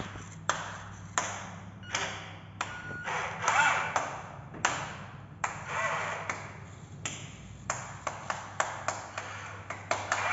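A run of sharp ringing pings and taps at irregular intervals, over a low steady hum.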